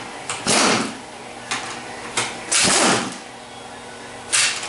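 Pneumatic impact wrench fired in short bursts, three main ones with a few short blips between, spinning out the half-inch-head bolts of a Turbo-Hydramatic 400 transmission's reverse servo cover.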